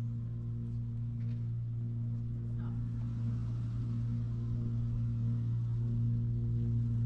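Ambient background music: a steady low drone that holds one pitch throughout.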